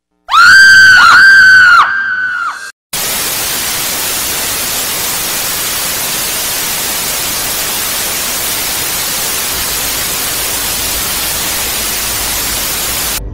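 A loud, high screeching sound effect in four short rising-and-falling cries, the last one quieter, dubbed over a rearing snake. After a brief gap it gives way to a steady, loud static hiss that cuts off suddenly near the end.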